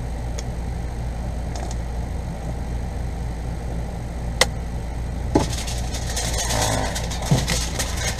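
Aluminium foil crinkling as a foil pack of potatoes is folded up, starting about five seconds in, with a couple of knocks. Before it a sharp click, and under it all a steady low hum.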